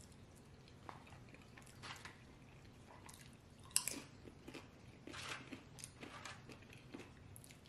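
Close-miked chewing of a mouthful of burrito bowl (rice, chicken, beans), with soft, irregular mouth clicks and smacks. There is a sharper click about four seconds in.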